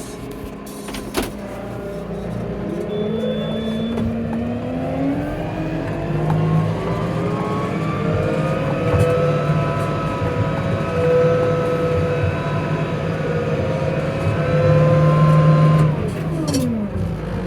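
Tractor engine building revs as the tractor gets under way, holding high revs with slight swells for several seconds, then dropping off steeply about sixteen seconds in. A single sharp knock about a second in.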